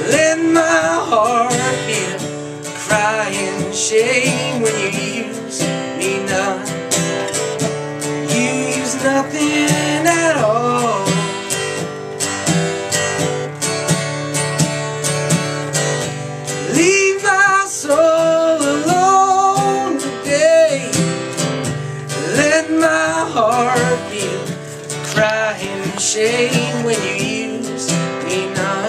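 Live acoustic song: a steel-string acoustic guitar strummed steadily, with a voice singing a wavering melody over it.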